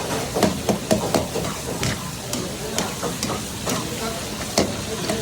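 Metal ladle clanking and scraping against a karahi while chicken, tomatoes and chillies fry in it: irregular sharp knocks, a few a second, over a steady sizzle.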